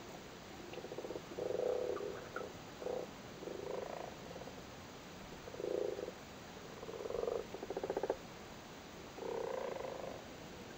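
Male common frogs calling at spawning time: a series of low, rapidly pulsed croaks, each under a second long, coming one after another and now and then overlapping.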